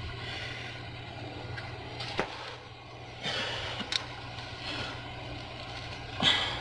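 Hands working a serpentine belt onto the engine's pulleys: light rubbing and scraping, with a sharp knock about two seconds in and a click about four seconds in, over a steady low hum.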